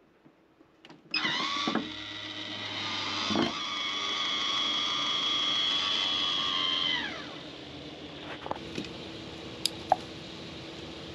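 A small electric motor starts and runs at high speed with a steady whine for about six seconds, then spins down with a falling pitch. A low steady hum and a few light clicks remain afterwards.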